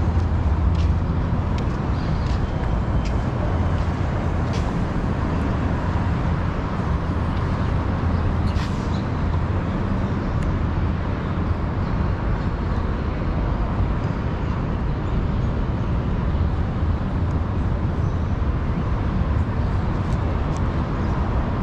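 Steady low rumble of city traffic, an even wash of vehicle noise with no single passing car standing out.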